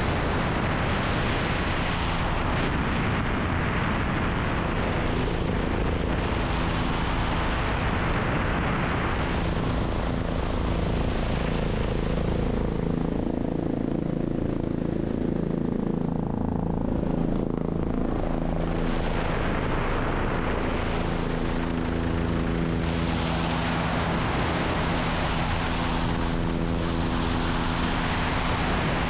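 Helicopter in flight: steady rotor and engine noise with a low, unchanging hum.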